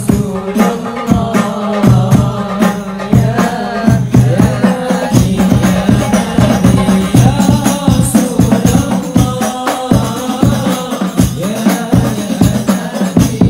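Religious selawat singing with a lead voice through a microphone, over a steady beat of hand drums.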